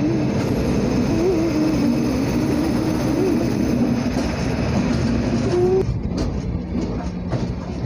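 Running noise of a moving passenger train heard from an open coach door: a steady rumble of wheels on rails, with a few sharp clicks near the end.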